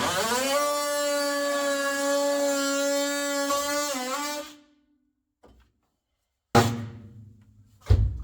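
Oscillating multi-tool buzzing at a steady high pitch after its speed comes up, dipping briefly before it cuts out about four and a half seconds in. Two sharp thunks follow near the end.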